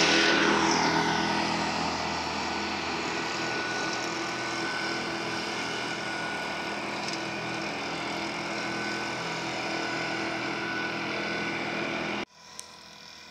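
John Deere 6215R tractor's six-cylinder diesel and McConnell flail hedgecutter running with a steady drone, easing somewhat quieter over the first two seconds. Near the end it cuts off abruptly to a fainter hum, with a single click just after.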